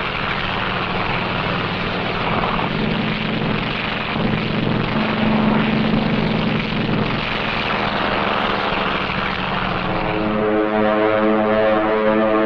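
Propeller aircraft engines running steadily, swelling a little about halfway through. About ten seconds in, a steady low pitched tone with a horn-like sound comes in over them.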